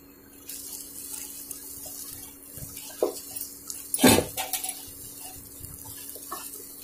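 Wooden spatula stirring and scraping thick sweet corn halwa around a hot kadhai, with a soft steady hiss and a few knocks of the spatula against the pan, the loudest about four seconds in. A faint low hum runs underneath.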